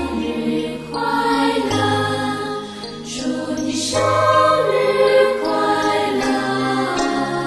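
Background music: a slow song with sustained chords and bass notes changing every second or so.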